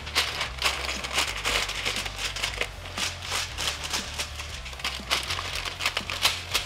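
Aluminium foil being folded and pressed tight around a rack of pork ribs, crinkling and crackling irregularly.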